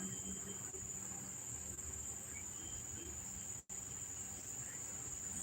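Crickets chirring steadily as an unbroken high-pitched background drone, cut by a brief dropout a little past halfway.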